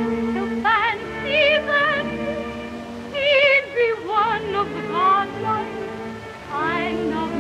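A woman singing a slow ballad in a high voice with a pronounced vibrato, in phrases with short breaks, over a sustained instrumental accompaniment, heard as an early sound-film recording.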